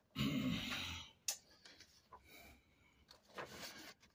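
Sheets of printed paper rustling and being handled as they are picked up and held out, with a sharp tap about a second in and a softer rustle near the end.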